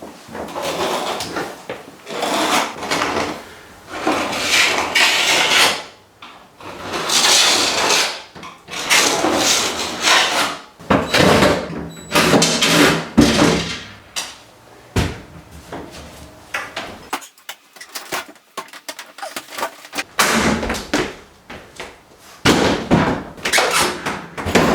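Wooden kitchen cabinet parts being pried and pulled loose during demolition: irregular knocks, bangs, scraping and clattering of wood, with brief pauses between bursts.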